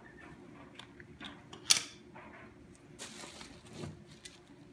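Hands handling a compact camcorder and its packaging: light clicks and taps, one sharp click a little under two seconds in, and a short plastic rustle around three seconds in.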